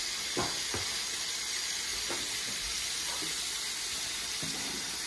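Chopped bacon sizzling in oil in a frying pan, a steady hiss, with a few faint clicks.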